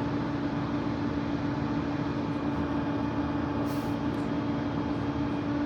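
Steady rushing roar of distant waterfalls, with a steady hum under it.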